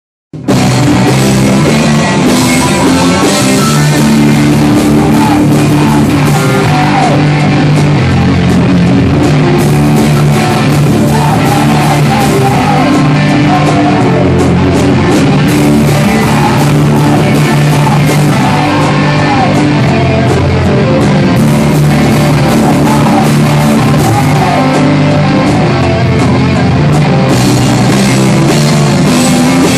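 A rock band playing loud, with electric guitar and a drum kit. The music starts abruptly about half a second in and runs on at a steady loudness.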